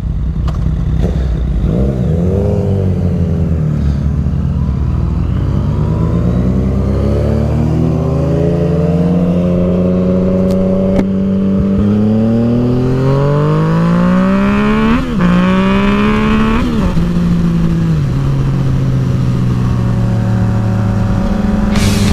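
Yamaha FZ-09's inline-three engine pulling away and accelerating: the revs climb steadily, dip briefly about fifteen and seventeen seconds in at gear changes, then drop about eighteen seconds in and hold steady at cruising speed.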